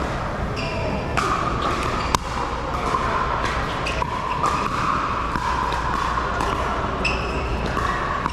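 Pickleball paddles hitting a plastic ball in a rally: a string of sharp pops, the sharpest about two seconds in, echoing in a large indoor hall with background hubbub.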